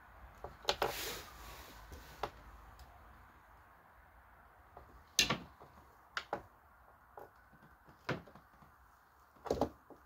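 Scattered clicks and knocks of a socket wrench and extension being fitted and worked among engine-bay parts, with a brief rustle about a second in.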